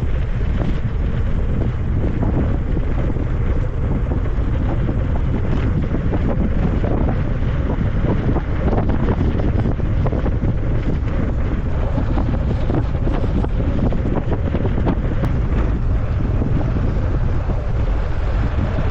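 Steady wind rush buffeting a mountain biker's camera microphone while riding an e-MTB down a trail, with small scattered knocks from the bike over the ground.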